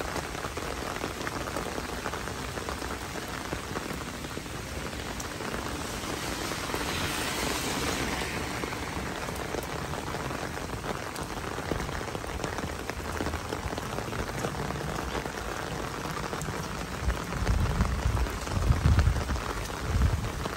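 Steady rain falling on wet pavement and foliage, an even hiss that swells briefly about a third of the way in. Low rumbles on the microphone near the end.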